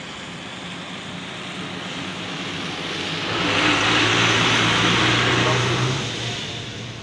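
A motor vehicle passing close by on a wet road: its engine hum and tyre hiss build up, peak for a few seconds in the middle, then fade away.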